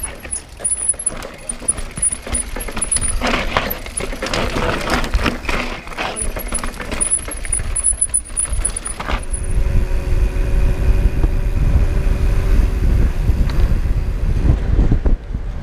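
Mountain bike clattering down a rocky trail, with tyres crunching over loose stones and many quick knocks and rattles. A little over halfway through this gives way to a steady low wind rush on the microphone and a faint steady hum of riding on smooth tarmac.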